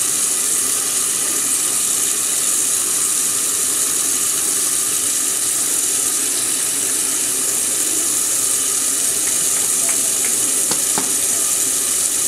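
Tap water running in a steady stream from a gooseneck faucet into a stainless steel sink, giving a steady hiss. A few faint ticks come near the end.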